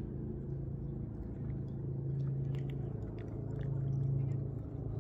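A distant engine's steady low drone, with faint scattered ticks over it.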